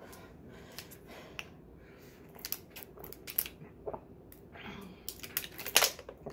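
Thin plastic water bottle crackling and clicking in the hand as someone drinks from it, the crinkles sharpest and most frequent about five to six seconds in.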